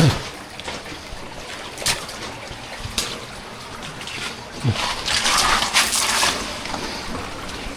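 Water splashing and sloshing as people move through flooded cave water: scattered single splashes, with a louder stretch of sloshing from about five to six seconds in.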